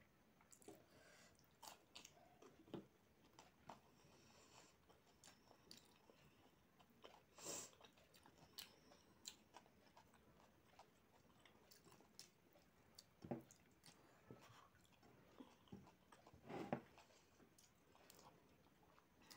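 Faint, close-miked chewing and mouth sounds of a person eating rice and curry by hand, with scattered soft smacks and clicks; two louder smacks come about halfway through and near the end.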